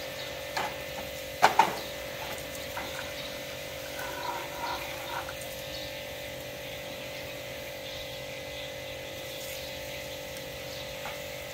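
Steady hum of an electric water pump running, with a double sharp knock of plastic toys clattering in a basin about one and a half seconds in and a few lighter clatters after.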